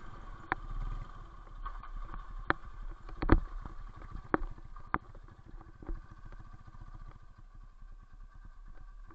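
BMW R90 sidecar outfit's air-cooled boxer twin running, with a string of sharp knocks and rattles as the rig rolls over rough ground, the loudest about three seconds in.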